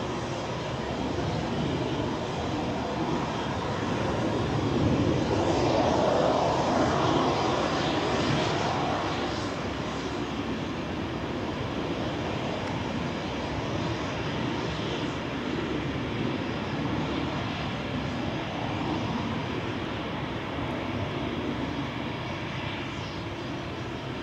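Eurofighter Typhoon's twin EJ200 turbofan engines running at taxi power as the jet taxis past. The sound swells from about four seconds in, is loudest around six to eight seconds, and then settles to an even level.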